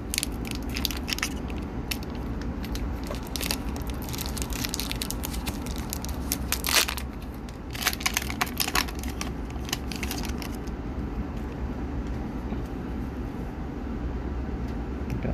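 Foil wrapper of an Upper Deck hockey card pack crinkling and tearing open by hand, a dense run of crackles that stops about ten seconds in, over a steady low hum.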